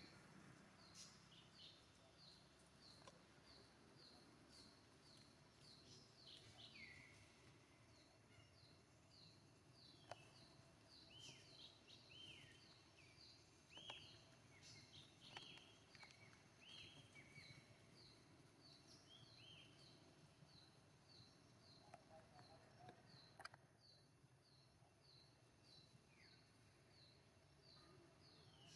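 Faint outdoor ambience of bird calls: a short high chirp repeated evenly, about three every two seconds, with a run of falling chirps in the middle and a few light clicks.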